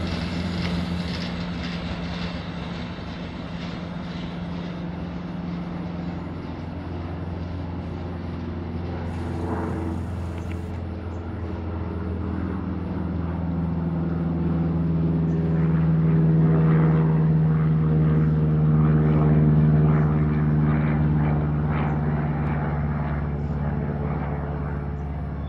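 Loaded freight train rolling past: a steady rumble of the wagons with a droning hum that swells in the second half and eases off near the end, with faint wheel clicks.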